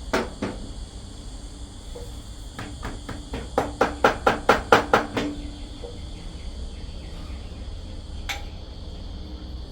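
A quick run of about a dozen sharp taps, roughly five a second, a few seconds in, after two knocks at the start and before a single click near the end: the scooter's seized starter Bendix gear being tapped and worked loose.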